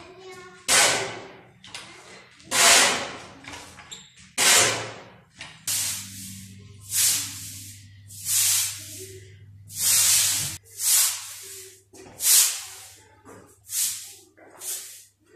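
A steel shovel scraping and tossing dry cement mix across a concrete floor, then a broom sweeping it out in short swishes, about one a second.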